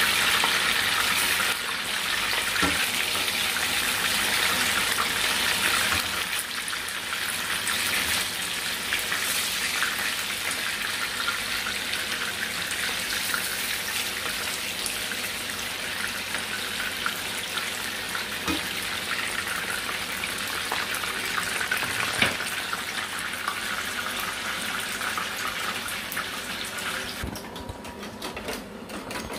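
Fish pieces frying in hot oil in a frying pan: a steady, loud sizzle with crackling, and a few sharp taps of a slotted metal spoon against the pan. The sizzle drops away about 27 seconds in.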